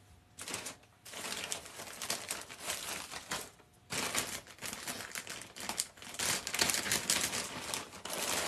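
Crinkling and rustling of packaging being handled, in long stretches broken by short pauses about a second in and near four seconds.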